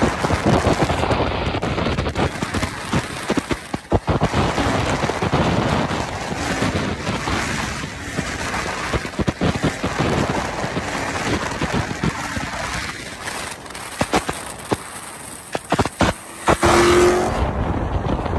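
Cars travelling at highway speed: steady road and tyre noise with gusty wind buffeting the microphone.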